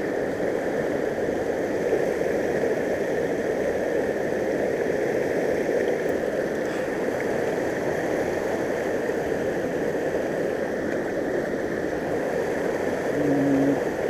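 Shallow mountain stream running and gurgling over and around boulders close by, a steady rush of water.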